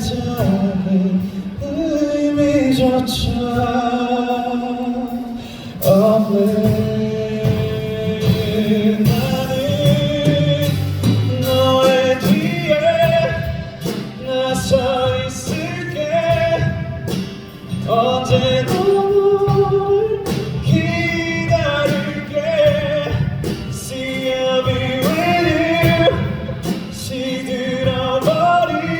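A male singer singing a slow song live over instrumental backing.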